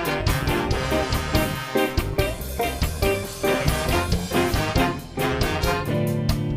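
Live band playing an upbeat ska-style tune, with horns over a fast, steady drum beat. About six seconds in the drums stop and the band holds a long chord.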